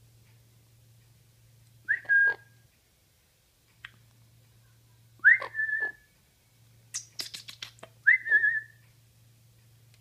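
Blue-fronted Amazon parrot whistling three times, each a short upward-swooping whistle held for about half a second, with clicks between them and a quick rattle of taps just before the third.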